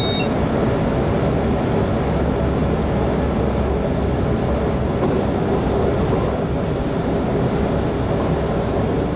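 Electric multiple-unit train running steadily along the line, heard from inside the driver's cab as an even rumble.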